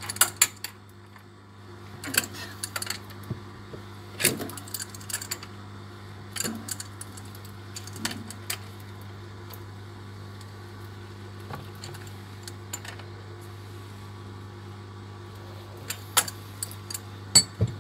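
Scattered metallic clicks and clinks of an open-end spanner working on a threaded angle valve, giving it another turn to tighten it. A steady low hum runs underneath.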